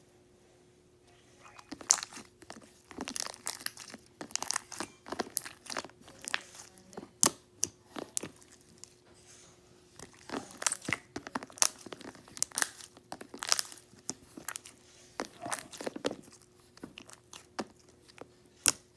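Slime being squeezed and worked by hand, giving irregular crackling clicks and pops, starting about a second and a half in.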